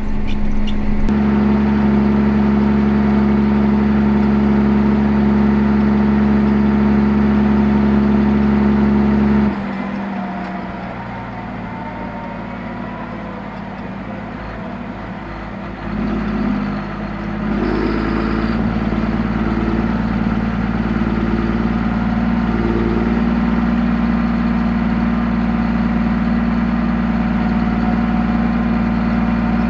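John Deere 7230R tractor's six-cylinder diesel engine running steadily under load, a constant drone heard inside the cab. About nine seconds in the sound drops abruptly to a quieter, thinner drone, then swells back to a steady drone a little past the middle.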